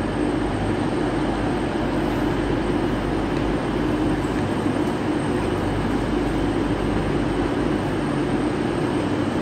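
Steady hum of trains standing at station platforms, with low droning tones.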